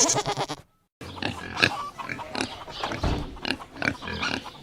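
The tail of a goat's bleat, then after a brief silence a pig grunting over and over in short, irregular calls.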